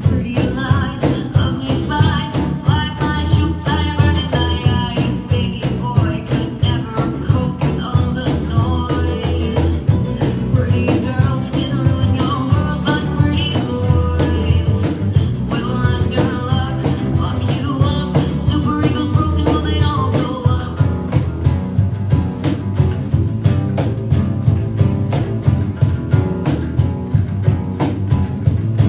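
Live band playing a rock song on guitar, bass and drums, with a steady beat.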